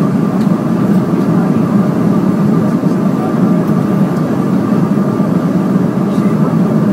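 Steady drone of engine and airflow noise inside an airliner cabin in flight, with a faint steady whine above it.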